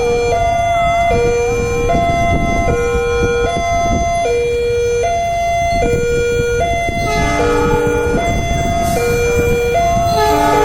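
Railway level-crossing warning siren sounding a two-tone hi-lo wail, switching between a lower and a higher pitch about every 0.8 seconds; the uploader finds it off-key. About seven seconds in, a second set of tones joins out of step, over a steady low traffic rumble.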